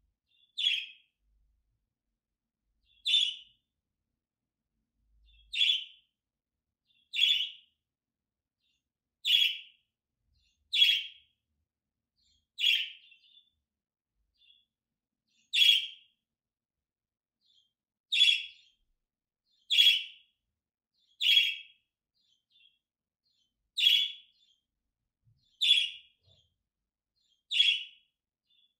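Budgerigar contact calls: short single chirps, about fourteen of them, coming roughly every two seconds with silence in between.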